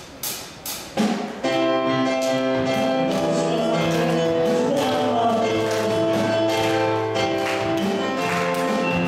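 Four quick, sharp clicks, like a count-in, then a worship song starts: band accompaniment with sustained notes and singing.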